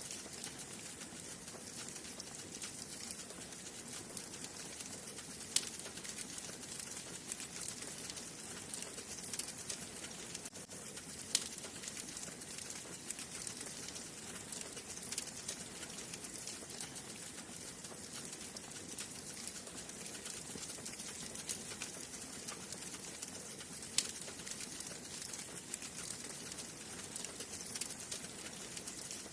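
Wood fire burning in a fireplace, with a steady high hiss and continual small crackles, and a few louder sharp pops about 5, 11 and 24 seconds in.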